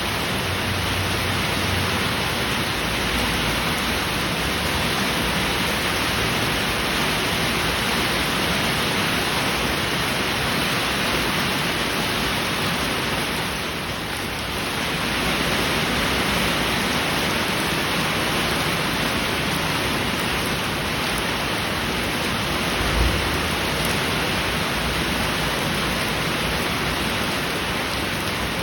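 Heavy rain falling steadily, briefly easing about halfway through. A short low thump sounds about three quarters of the way in.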